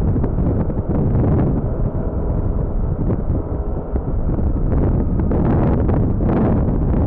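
Wind buffeting the microphone: a loud, gusty rumble throughout.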